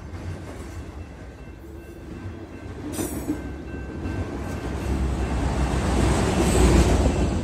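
Freight train's autorack cars rolling past: a steady rumble and rattle of steel wheels on rail that grows louder over the last few seconds, with one sharp knock about three seconds in.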